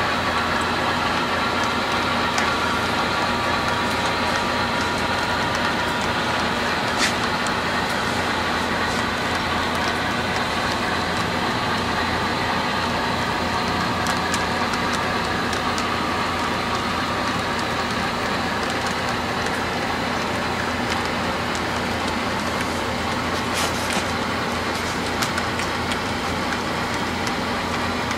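HO-scale model train cars rolling steadily along the track, a continuous whir with a few sharp clicks from the wheels over the rails.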